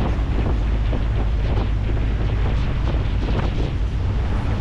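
Wind buffeting the microphone over the steady low rumble and rushing water of a passenger ferry under way.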